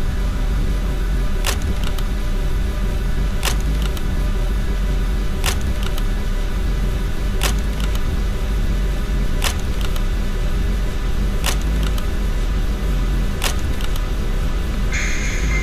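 A lamp switch clicking about once every two seconds over a steady low rumbling drone. A high, steady tone comes in near the end.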